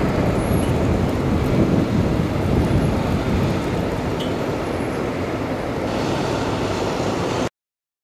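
Steady low rumble of street traffic on a snow-covered road, cutting off abruptly about seven and a half seconds in.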